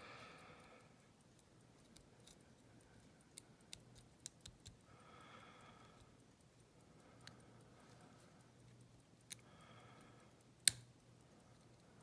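A hook pick clicking and ticking against the pin stacks of a six-pin ERA euro cylinder as it is single-pin picked under tension: scattered faint ticks, with one sharper click near the end.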